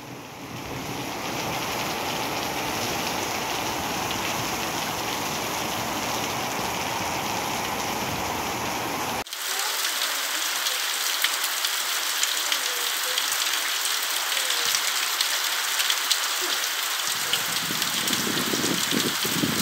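Heavy rain pouring, with a low rumble of wind for the first nine seconds. Then it cuts abruptly to a steadier, hissing downpour on a paved street and sidewalk.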